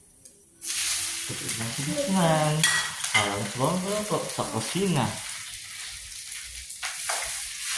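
Food sizzling in hot oil in a frying pan on a gas stove while it is stirred with a spatula; the sizzle starts suddenly about half a second in and then holds steady.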